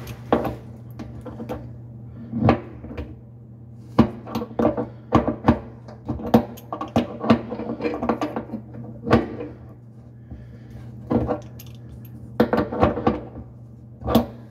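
Red-handled metal hand tool clinking and scraping against the faucet's mounting nut and the underside of a stainless steel sink, in irregular clusters of sharp clicks, as the nut is worked loose to remove the faucet.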